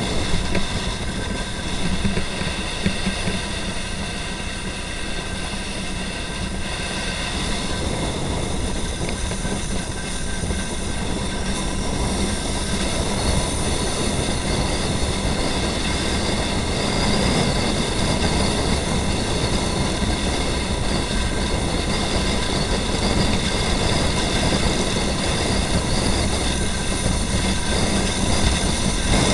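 Onboard sound of a motorcycle riding at steady speed: a constant rumble of wind on the microphone and road noise, with the engine running underneath and faint steady high whines.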